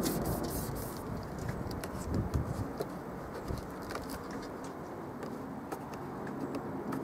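Flashband self-adhesive flashing strip being handled: its paper backing is peeled away and the strip pressed down with fingers, a soft rustle with scattered small clicks, busiest in the first couple of seconds.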